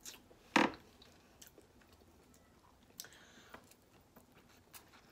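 Snow crab leg shells being cracked and eaten close to the microphone: one loud sharp snap about half a second in, then a few fainter clicks and crunches, with chewing.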